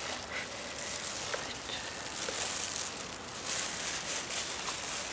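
Rustling and scuffing noise of a handheld camera being carried and handled, swelling and fading several times, with a few faint clicks.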